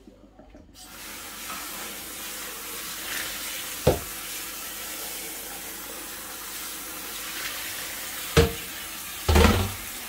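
Water running through a mesh strainer of soaked wheat and beans into a stainless steel sink, starting about a second in. Sharp knocks come about four seconds in and again near the end, followed by a louder clatter just before the end.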